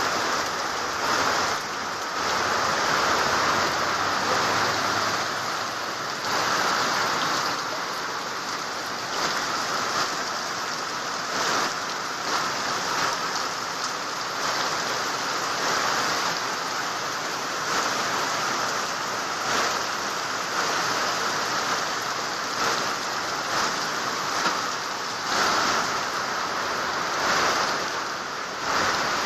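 Steady rushing noise of water in a flood, swelling and easing every few seconds.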